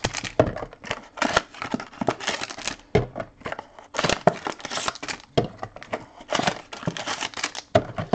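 Foil trading-card packs crinkling and rustling as they are handled and pulled from their box, in irregular bursts of crackle with short pauses.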